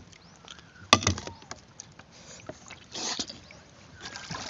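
Close-up handling and eating noises of raw sea urchin picked apart by hand: a sharp click about a second in, a short hissing noise around three seconds in, and small ticks in between.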